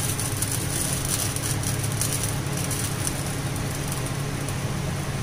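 Coconut milk pouring from a steel pot into a kadhai of hot chicken curry, with faint crackling sizzles over a steady low hum.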